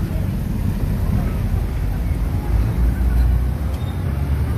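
Low, steady rumble of a motor vehicle engine and street traffic, with a steady low hum setting in near the end.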